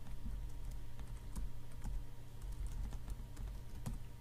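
Typing on a computer keyboard: a run of irregular key clicks as a search term is typed, over a low steady hum.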